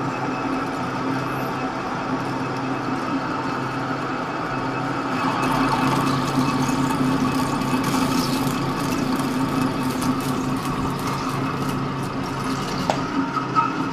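Lathe with its 2.8 kW motor driving the spindle directly off a frequency inverter, running steadily under load with a low hum and a whine while the cutter takes a 7 mm deep cut in a steel bar at 0.2 mm per revolution feed. The cut is going harder, the spindle speed a little low for it.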